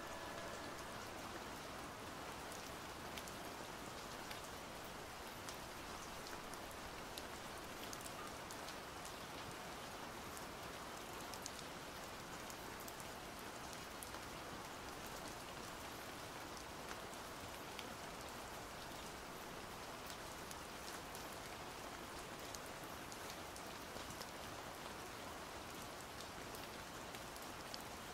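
Steady rain pattering on foliage: a faint, even hiss with many scattered light ticks of drops.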